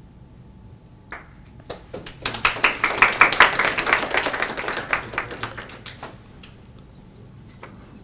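Audience applause lasting about four seconds, swelling quickly and then thinning out, with a couple of light clicks just before it.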